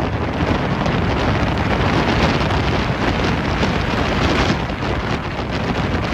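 Wind buffeting the microphone on an open-air railcar platform, over the steady running noise of a moving passenger train.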